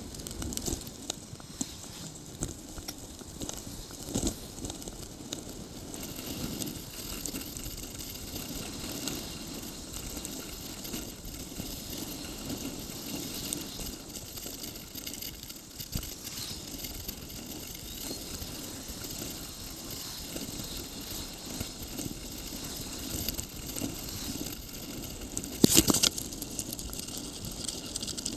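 Riding noise of a bicycle picked up by a handlebar-mounted camera: a steady rattle and crackle of the bike and road surface, with one loud knock near the end.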